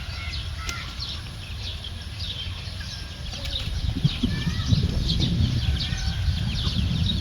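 Many short, high bird chirps in quick succession, with a low rumbling noise that grows louder from about halfway through.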